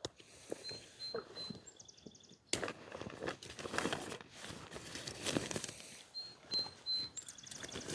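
Footsteps crunching and rustling through dry leaves and twigs, with a small songbird singing twice: three short high whistles followed by a quick, very high trill.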